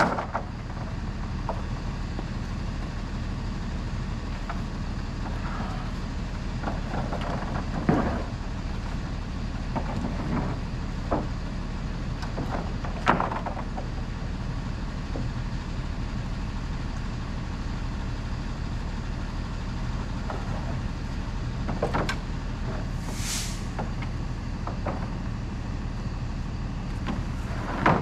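Truck engine idling steadily under a series of sharp wooden knocks and clunks as lumber roof trusses are pulled apart and set down, with one brief hiss about two-thirds of the way through.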